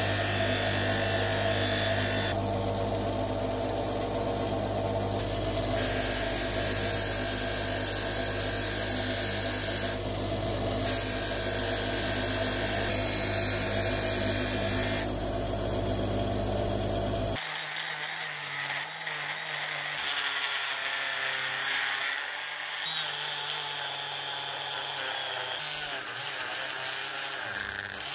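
Electric bench grinder running with a polishing wheel, a steady deep motor hum under the hiss of brass oil can parts being buffed against the wheel. About two-thirds of the way in, it gives way to the thinner whine of a small high-speed rotary tool spinning a polishing disc over the brass, with no deep hum.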